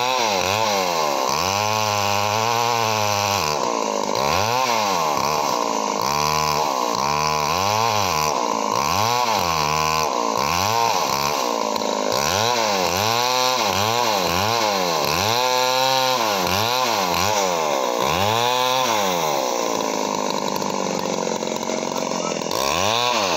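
Two-stroke gasoline chainsaw cutting through a log, its engine pitch swooping up and down over and over, about once a second, as the throttle is worked. Near the end it holds a steadier note for a few seconds before swooping again.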